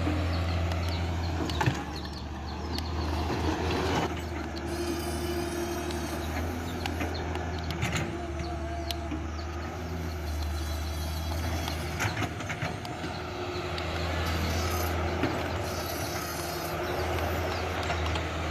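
Huina RC excavator's small electric gear motors and upgraded arm servo whirring in short spells, with clicks from the plastic and metal parts, over a steady low hum.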